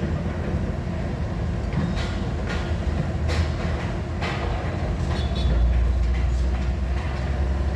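Loud, steady low rumble with sharp metallic clanks every second or so, swelling louder for a stretch past the middle: the noise of dismantling work at a metro station.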